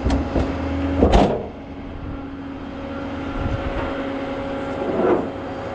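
Car engine idling steadily, with two short louder swells, about a second in and about five seconds in.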